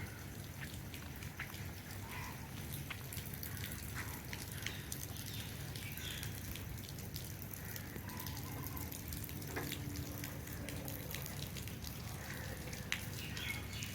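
Faint water sounds: scattered drips and patter over a low steady rumble, with a faint steady tone for about three seconds past the middle.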